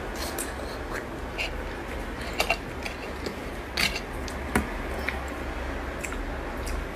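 Cooked shellfish shells cracked and pulled apart by hand and eaten, close to the microphone: a scattering of sharp cracks and clicks over a steady low hum.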